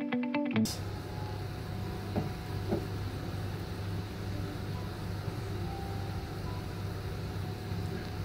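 A bit of guitar music ends about half a second in. After that there is a steady low room hum with a faint hiss and a couple of faint clicks.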